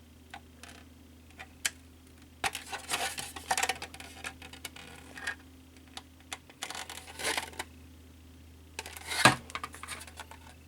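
Plastic model kit parts being handled: scattered clicks, two spells of rustling, and a knock near the end as a part is set down.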